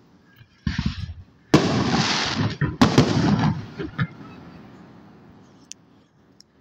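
Aerial fireworks going off: a short burst under a second in, then two loud bangs about a second apart, each followed by a rush of crackling that dies away by about four seconds in.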